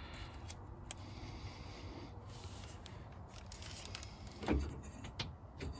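Faint clicks and rustling of multimeter probes being worked into a wiring connector, with one low thump about four and a half seconds in.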